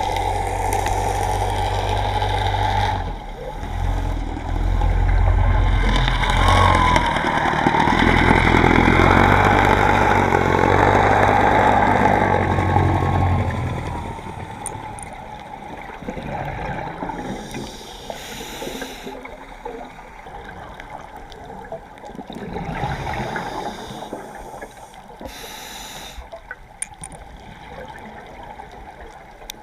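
Underwater water noise with a scuba diver's exhaled bubbles: a loud low rumble for about the first fourteen seconds, then quieter, with now and then a swell of bubbling.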